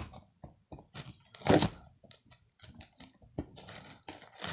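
Cardboard parcel and packaging being handled and opened: scattered clicks, rustles and scrapes, with a louder rip or scrape about a second and a half in.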